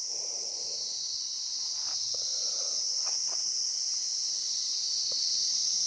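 A steady, high-pitched chorus of insects, such as crickets or cicadas, with a few faint clicks.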